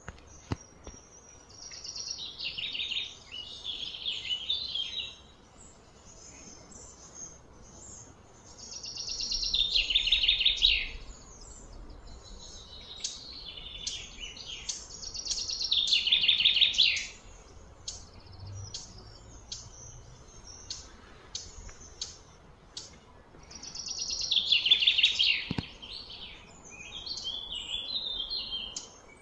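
A bird singing, repeating a short phrase of fast, falling trills several times, with scattered short chirps between the phrases.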